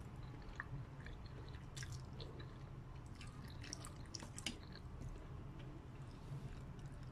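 A person slurping and chewing noodles in broth at close range, with small wet mouth clicks and smacks, thickest from about two to four and a half seconds in.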